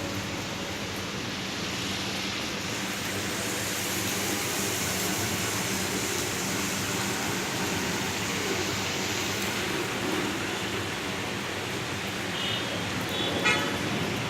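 Steady heavy rain, an even hiss, with a low steady hum underneath. A few short high beeps come near the end.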